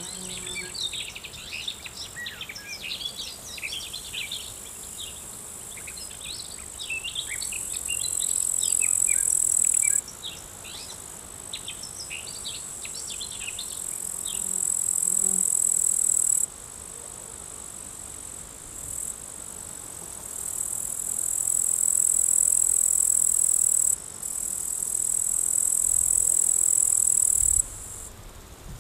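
Outdoor summer insect chorus: a steady high-pitched buzzing that swells and breaks off abruptly several times. Small birds chirp busily over it during the first half.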